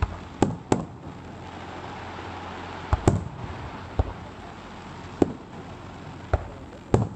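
Aerial firework shells bursting overhead: about nine sharp bangs at uneven intervals, some coming in quick pairs.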